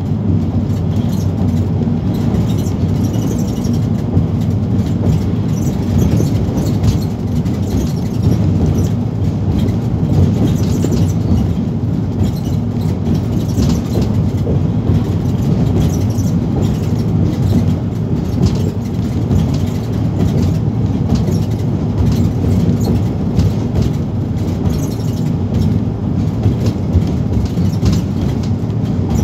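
Inside a Van Hool NewA360 bus cruising at steady speed: a constant low engine drone mixed with tyre and road noise, with occasional faint clicks.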